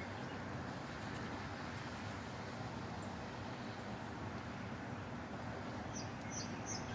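Steady outdoor background noise, distant traffic, with a few faint bird chirps near the end.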